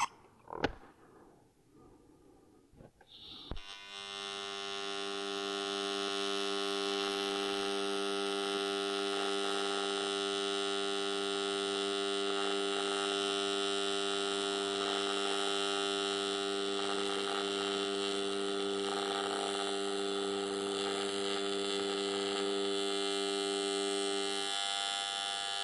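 AC TIG welding arc from a Lincoln Invertec V205-T on AC square wave, buzzing steadily as cast aluminum is welded. The arc is struck about three and a half seconds in after a few faint clicks, holds for about twenty seconds, and stops near the end.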